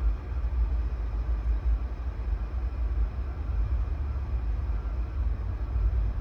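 Steady low rumble of road and wind noise from a car moving in city traffic, heaviest in the deep bass, with no distinct engine note.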